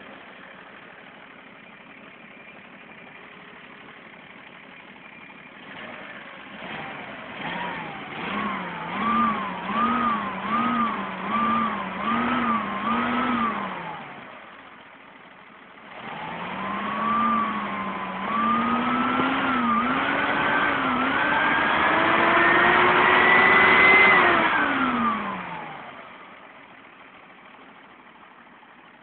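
Dodge D200 pickup's Chrysler slant-six engine idling, then revved in a quick series of throttle blips, settling back to idle. It is then held in one long climbing rev that rises in steps for several seconds before the throttle is released and it falls back to idle.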